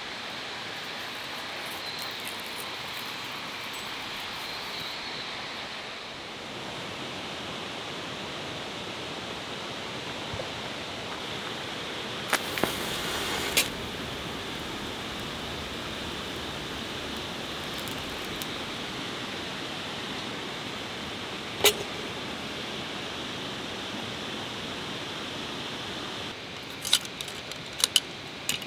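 Steady rushing of a mountain stream, with a few sharp metallic clicks and clinks from camp gear being handled: single clicks now and then, and a quick cluster near the end.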